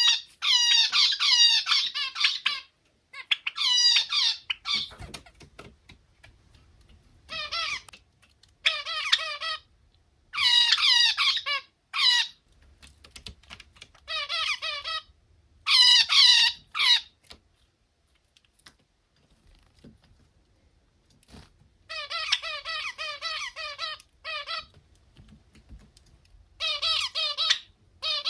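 Pet finch singing its unusual song in short buzzy phrases of stacked notes, repeated about nine times with pauses in between and a longer silence in the middle.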